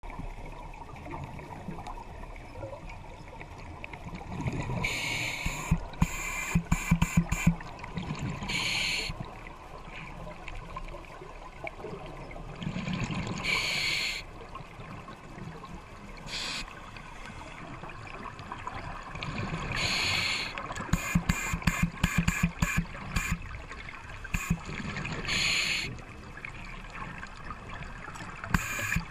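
Scuba diver breathing underwater on an open-circuit regulator: a hissing inhale every several seconds, some followed by a gurgling, crackling rush of exhaust bubbles, about five breaths in all.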